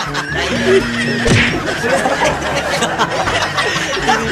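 Several people giggling and laughing over background music.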